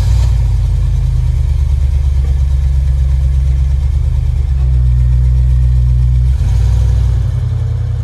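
Range Rover P38's engine running just after starting, a steady low rumble heard from behind the car at the exhaust. Near the end the car pulls away and the sound drops a little.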